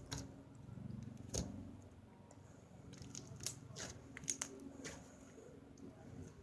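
Slime being squished and worked by hand, with scattered sharp pops and clicks.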